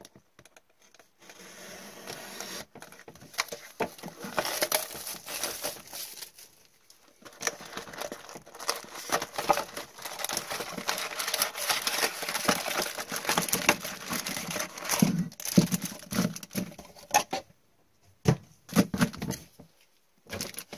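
Plastic wrapping being torn open and crumpled by hand, a long stretch of crinkling and crackling with short pauses, as a 2019-20 O-Pee-Chee Platinum hockey card hobby box is opened. A few dull knocks come near the end.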